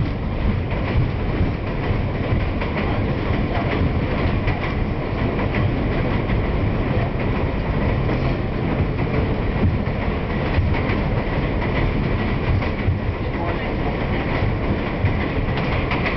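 New York City subway train (N train) running at speed on elevated track, heard from inside the car: steady wheel-on-rail noise throughout.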